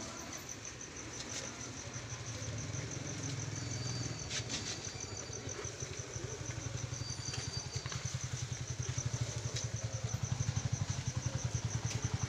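A motor engine running with a fast, even throb, growing louder over the last few seconds. A high, evenly pulsing trill runs alongside it, with a few faint clicks.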